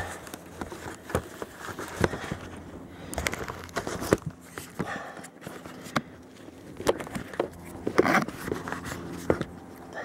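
Close-up handling noise from a camera set down on slippery ground: irregular knocks and scrapes, with plastic crinkling against the microphone as the camera shifts.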